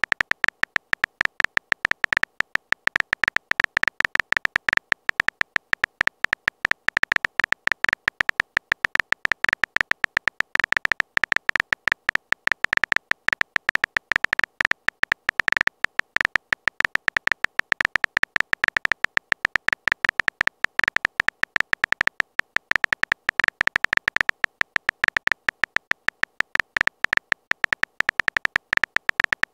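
Rapid run of short, high, beep-like key clicks, about five a second without a break: the typing sound effect of a texting chat animation, one click for each letter typed.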